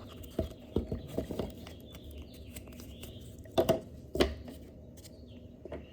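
Small clicks and taps from handling a box and its contents, with two louder knocks a little past the middle.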